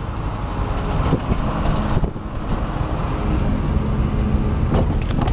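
A car's engine and road noise heard from inside the cabin while towing a second car on a tow dolly: a steady drone that grows a little louder, with a few faint clicks.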